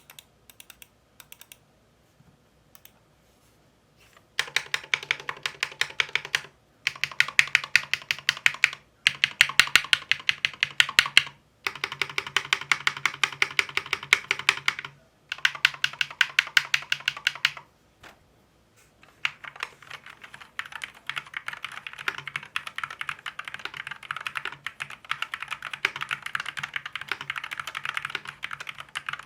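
Keystrokes on an Akko Fun 60 Pro keyboard with Akko Glare magnetic switches (PC and POM internals). A few single key presses give way to five fast runs of typing with short pauses between them. From about two-thirds of the way in, the typing turns steady, quicker and softer.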